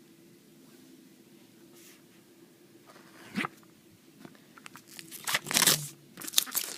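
Plastic wrapping on a keyboard box being torn and crinkled: a single crackle about halfway in, then a run of louder crackling and rustling toward the end.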